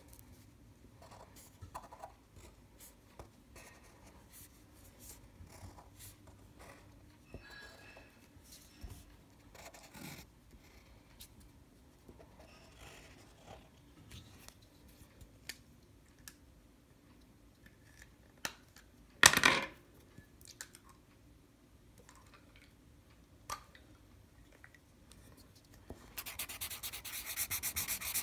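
Black felt-tip marker drawing on paper: faint scattered scratches and taps of the tip as lines are drawn, with one brief louder scrape a little past two-thirds through. Near the end it turns into fast, continuous back-and-forth scribbling as an area is coloured in.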